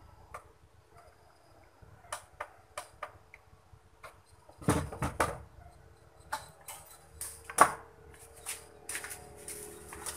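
Handling noise on a wooden workbench: scattered clicks and knocks as a plastic set-top box is turned over and set down and cables and tools are moved, with a cluster of louder knocks about halfway through. A faint steady hum comes in after about six seconds.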